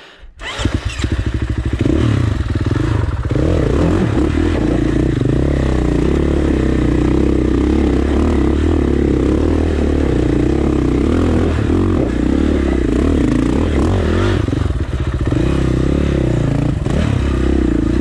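2019 KTM 450 XC single-cylinder four-stroke dirt bike engine starting up within the first second and then running steadily under throttle as the bike climbs a rocky trail, with brief dips in engine note along the way.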